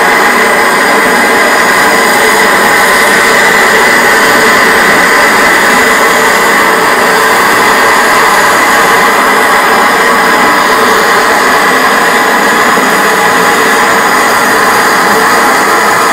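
Handheld canister gas torch burning steadily: a loud, even hiss with no breaks.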